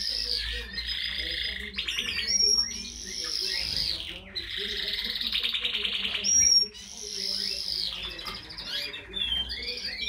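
Red-factor canaries singing: a long, near-continuous song of rapid trills, rolls and sweeping whistles, broken by brief pauses.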